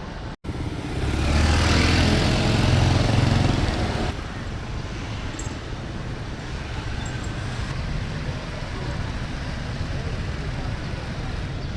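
City street traffic: vehicle engines and road noise, louder for about three seconds near the start with a deep rumble, then a steady lower hum.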